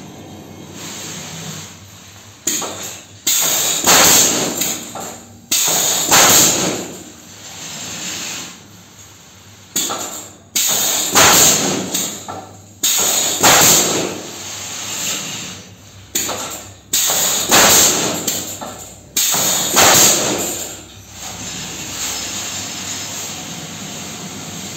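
Pallet-nailing machine's pneumatic nail guns firing in volleys, sharp shots every second or two, often in quick pairs, each trailing off in a hiss. The shots stop about 21 seconds in and leave a steadier, quieter mechanical noise.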